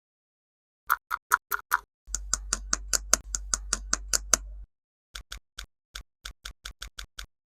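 Plastic toy pieces clicking in quick runs of sharp ticks, about five a second, with a low hum under the clicks for a couple of seconds in the middle, then slower, uneven clicks.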